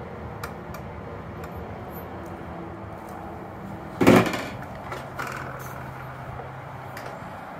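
A short, loud clatter about four seconds in, over faint small ticks and a low background hum, with a faint steady low hum for a few seconds after it.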